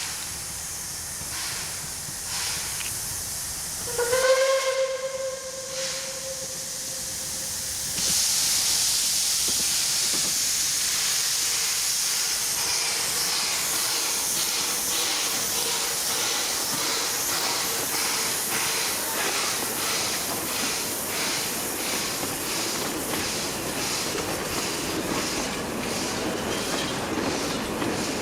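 Narrow-gauge NA class 2-6-2T steam locomotive 6A giving one whistle blast of about two seconds, about four seconds in. From about eight seconds a loud steady steam hiss sets in over the locomotive's rhythmic exhaust beats as it works past.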